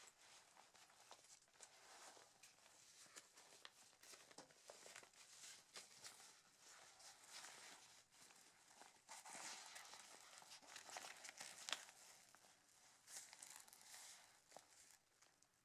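Faint rustling and crinkling of a nylon waist pack's fabric as it is handled and turned over, with one sharp click near the end.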